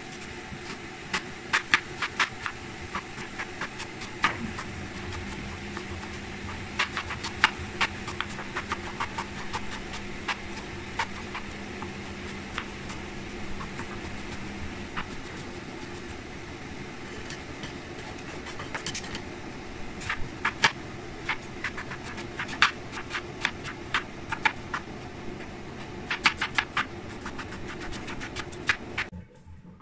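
Kitchen knife chopping onion on a plastic cutting board: several runs of quick, sharp taps, over a steady mechanical hum.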